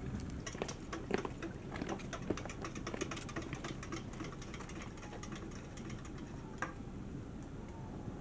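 Wood fire crackling, with quick sharp snaps that come thick for the first few seconds and then thin out. One louder click comes about six and a half seconds in.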